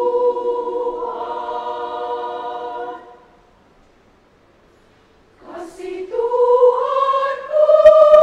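Women's choir singing a cappella. A held chord breaks off about three seconds in, and after a couple of seconds of silence the voices come back in, rising, and swell into a loud sustained chord.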